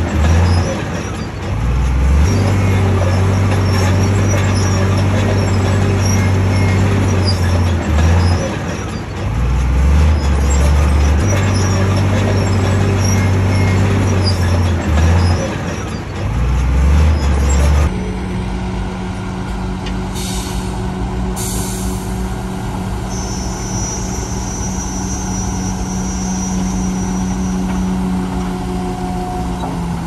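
Heavy diesel engine of earthmoving machinery running under changing load, its deep note stepping up and down in pitch. After an abrupt change about 18 seconds in, a steadier engine note with two short hisses a second apart and a thin high squeal lasting about five seconds.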